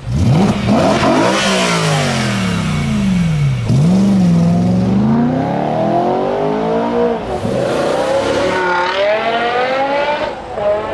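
High-revving BMW M car engines accelerating hard. The exhaust note climbs in pitch and drops back at gear changes several times, starting abruptly and breaking off sharply about four seconds in.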